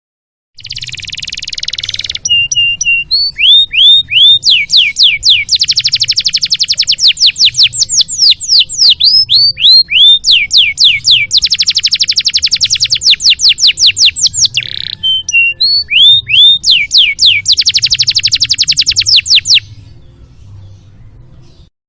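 Domestic canary singing a long, varied song: a buzzy opening phrase, then series of sharp downward-swept whistled notes alternating with long, very rapid trills. It is a full-repertoire training song of the kind played to tutor other songbirds. The song starts abruptly about half a second in and cuts off just before the end.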